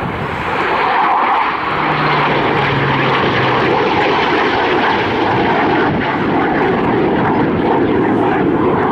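Eurofighter Typhoon, with its twin jet engines, and a Spitfire flying past in formation, heard as one loud, steady jet noise that swells about a second in and holds.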